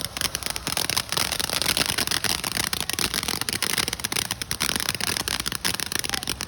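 Consumer firework going off with a dense, continuous crackle of rapid small pops.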